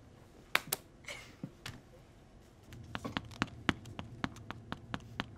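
Two sharp hand slaps about half a second in, then from about halfway a steady run of hard-soled shoe footsteps clicking on a vinyl tile floor, about three steps a second.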